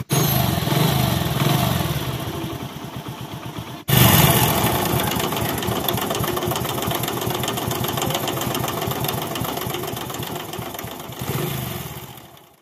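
Hero commuter motorcycle's single-cylinder four-stroke engine running with its new timing chain fitted, the revs easing off. Just before four seconds in, a cut switches to the same engine before the repair, running with the engine noise that the chain replacement was meant to cure.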